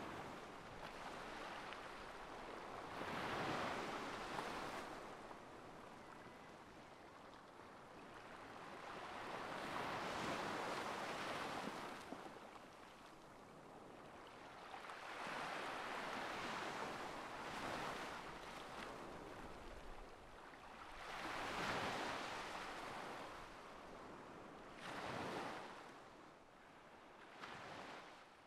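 Sea waves washing onto the shore, a rushing swell that rises and falls away every few seconds.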